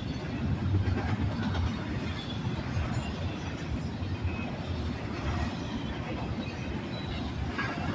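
Double-stack intermodal freight train's loaded well cars rolling past, their steel wheels making a steady low rumble on the rails.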